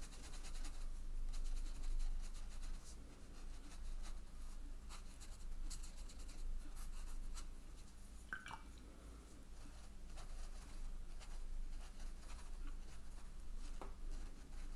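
Faint, soft scratching of a watercolour brush scrubbing and dabbing wet paint into textured cold-pressed cotton paper, with one short squeak just past halfway.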